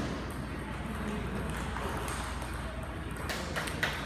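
Steady background noise of a busy table tennis hall, with a few sharp clicks of celluloid table tennis balls striking paddles and tables near the end.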